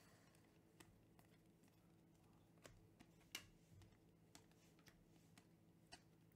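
Near silence with faint, scattered light clicks and ticks of trading cards being handled and flipped through, over a faint steady low hum.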